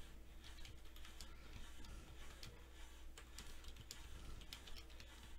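Faint computer keyboard typing: irregular key clicks as a line of text is typed.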